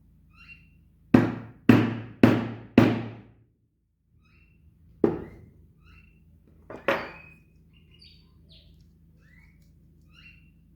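Sharp mallet blows on a leather-working tool: four in quick succession about a second in, then a single blow about five seconds in and another near seven seconds. Small birds chirp faintly between the blows.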